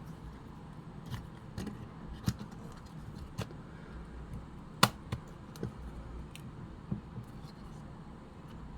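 Irregular small clicks and taps of a vintage movie camera's parts being handled during repair, with one sharper click near the middle.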